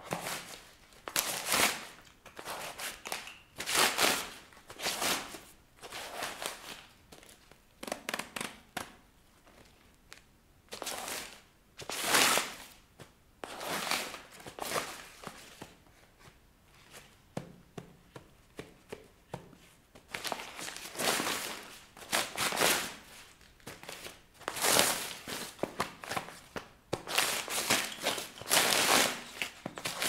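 Paper and a spiral notebook being torn and crumpled under high heels on a tile floor: repeated sharp rips and crinkles mixed with heel taps, in irregular bursts with short lulls.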